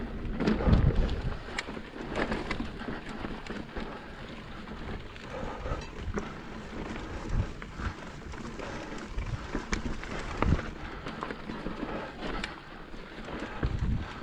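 Mountain bike ridden over rough rock: irregular knocks and rattles from the tyres, chain and frame over a steady rumble of wind on the microphone.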